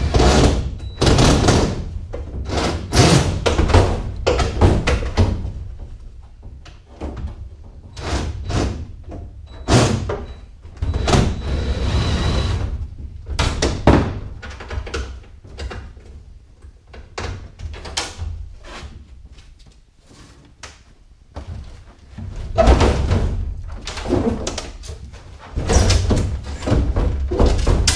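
Irregular knocks, clanks and bangs of aluminum panels as the splashwell of an aluminum Tracker boat is worked loose from its caulking and lifted, with a steadier rasping stretch around the middle.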